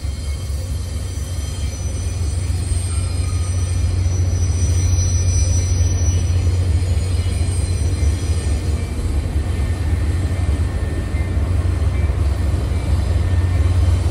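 Metra commuter train of bilevel passenger cars rolling past with a steady low rumble, getting a little louder after the first few seconds as its diesel locomotive at the trailing end draws nearer.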